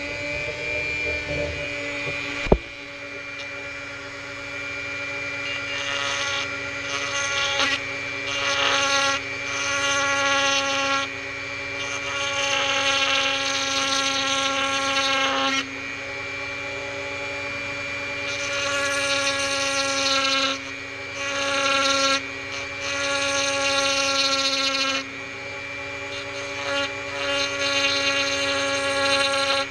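Small machine tool's electric motor running steadily, with repeated stretches of rasping as the cutter bites into brittle plastic that is splintering out. A single sharp knock about two seconds in.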